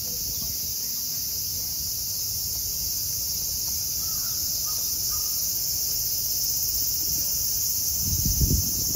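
Cicadas in summer chorus, a loud, steady high-pitched buzz, with a few faint crow caws about halfway through. A low rumble runs underneath, with a brief low thump near the end.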